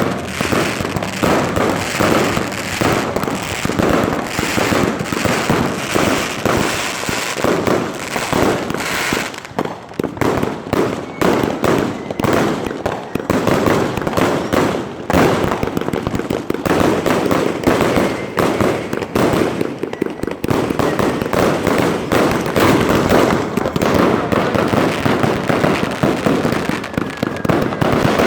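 Eclipse 260-shot 500-gram firework cake firing a rapid, unbroken string of shots, many per second.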